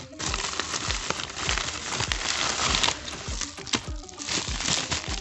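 Background music with a steady beat of about two low thumps a second, over the rustle and crinkle of a plastic shipping packet being handled.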